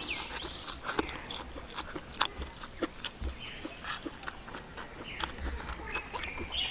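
A person chewing and biting a mouthful of stir-fried edamame and rice, with scattered short sharp clicks.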